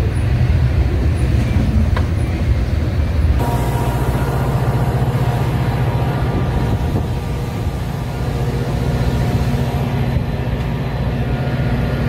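Diesel-hauled commuter train standing at a platform, its engines running with a steady low rumble and faint humming tones. The sound changes abruptly about three seconds in, to a similar steady rumble from another standing train.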